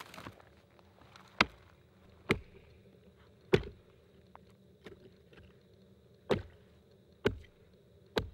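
Hatchet chopping into snow-covered thin river ice: seven sharp strikes about a second apart, the fourth much lighter than the rest.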